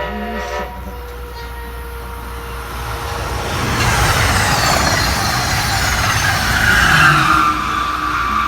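Amtrak push-pull passenger train, cab car leading and an ACS-64 electric locomotive pushing at the rear, passing fast. A horn chord cuts off within the first second, then the rush of wheels on rail and wind builds to a peak midway, with a whine that falls in pitch as the train goes by.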